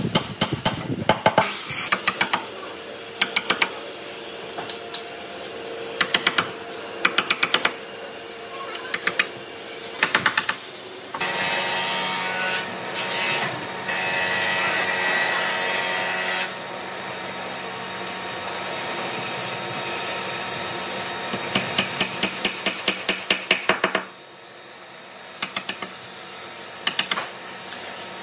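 Repeated bursts of quick hammer strikes on wood, several blows at a time. About eleven seconds in, a power tool starts and runs steadily for about thirteen seconds, then the hammering resumes.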